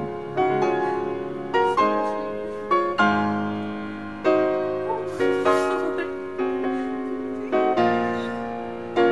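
Background piano music: a slow melody of struck notes and chords, each ringing out and fading before the next.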